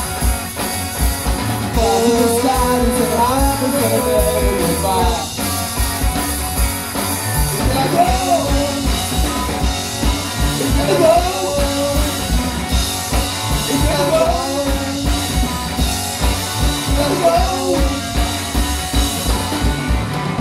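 Live rock band playing: electric guitar, bass guitar and drum kit on a steady beat, with a sung lead vocal.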